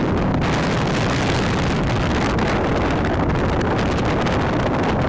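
Steady rush of heavy rain and wind, with the wind buffeting the microphone.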